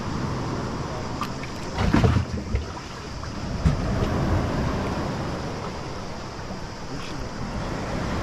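Water sloshing against a motorboat's hull, with wind buffeting the microphone and a louder gust about two seconds in.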